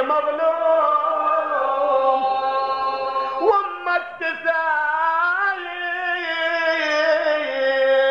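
A man's solo voice chanting a Shia mourning elegy in Arabic, drawn out in long wavering held notes. About three and a half seconds in there is a brief break and a sliding change of pitch before the chant carries on.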